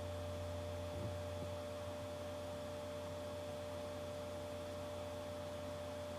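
Steady low electrical hum with a faint even hiss and a few thin steady tones in the recording's audio line, with no speech.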